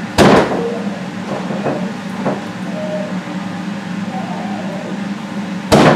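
A steady low rumbling drone, with two heavy thuds, one just after the start and one near the end.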